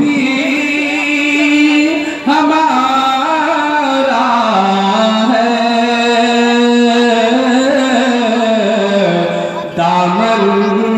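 A man singing a naat (devotional poem in praise of the Prophet) into a microphone, holding long notes that slide up and down in pitch, with short breaks for breath about two seconds in and near the end.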